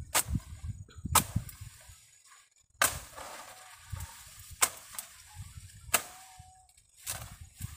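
A hand tool chopping repeatedly: six sharp blows, one every second or so, each followed by a short rustle.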